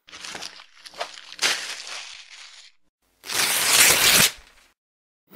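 Sound effects of a TV channel's logo animation: a run of short rustling swishes over the first two and a half seconds, then after a short gap one louder, longer whoosh.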